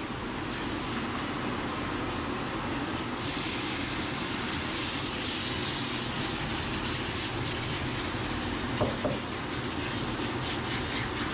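Water mixed with shampoo spraying from a car wash nozzle onto a dog in a stainless steel tub: a steady hiss that turns brighter about three seconds in, with one brief louder sound about nine seconds in.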